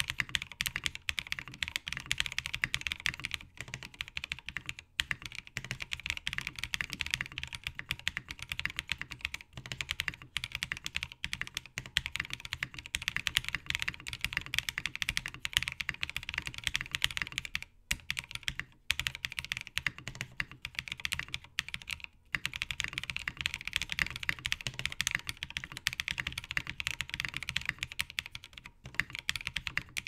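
Fast, continuous typing on a FreeBird TKL mechanical keyboard with a top-mounted POM plate and PBT keycaps: a dense stream of keystroke clacks, broken by a few brief pauses past the middle.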